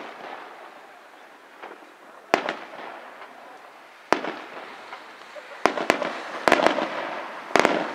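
Aerial firework shells bursting in a pyrotechnic display, each bang followed by a rolling echo. Single bangs come about two and a half and four seconds in, then a quicker run of bangs toward the end.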